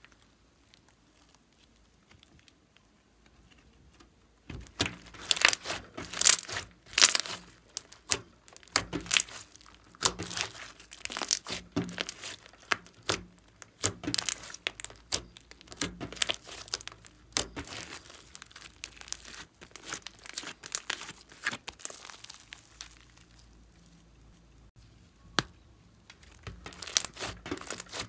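Hands squishing, folding and stretching a large lump of glossy slime, giving rapid sticky crackles and pops. It is nearly silent for the first four seconds or so, and the crackling eases for a few seconds near the end before picking up again.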